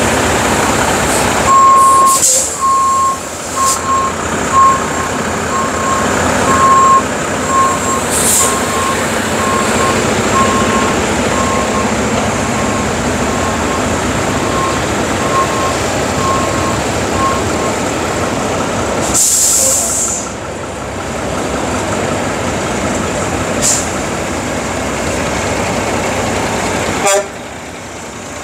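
Diesel engines of concrete mixer trucks running steadily. A truck's reversing alarm beeps evenly from about a second and a half in, fading away by about 18 s. Several short hisses of air come through, one of them longer at about 19 s.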